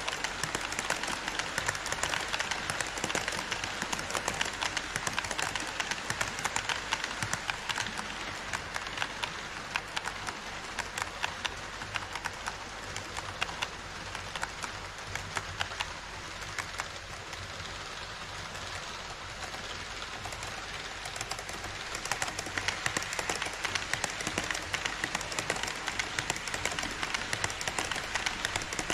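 HO-scale model trains running on KATO Unitrack past the microphone: a rapid, steady clicking and rattling of small metal wheels over the rail joints. It eases off in the middle and grows louder again about three-quarters through as an E5 series shinkansen model passes close.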